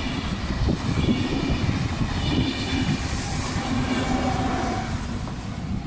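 A double-deck electric passenger train passing close by, its wheels clattering over the rails with a steady heavy rumble. The E464 electric locomotive goes past near the end.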